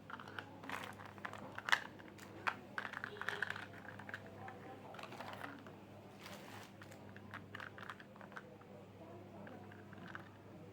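Small plastic toy pieces clicking and tapping against each other, irregular light clicks with a denser patch of quick ticks, as a miniature toy kitchen set is handled.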